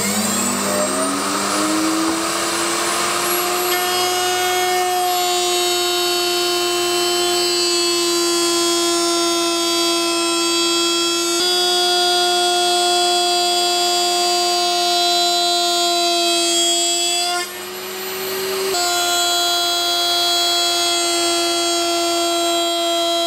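Router in a router table running at high speed with a steady whine, routing grooves in 9 mm plywood with a 10 mm bit. It spins up with a rising pitch just at the start, and about three-quarters of the way through the whine drops away briefly and comes back. A lower steady hum runs under it until that drop.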